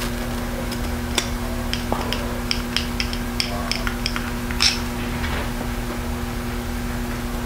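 Screwdriver turning small screws into the housing of a hot air rework gun's handle: a run of light clicks and ticks, about three or four a second, from about a second in until near five seconds, the sharpest near the end. A steady low hum runs underneath.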